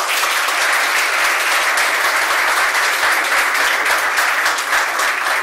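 An audience applauding, a dense steady clapping that starts to die down near the end.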